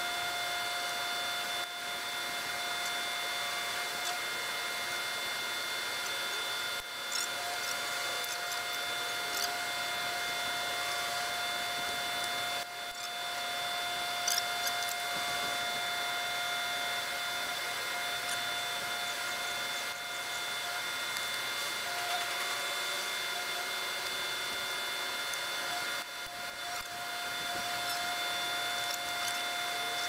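Washing machine wash motor, freshly restored after rust removal, running under power with a steady whine, dipping briefly a few times.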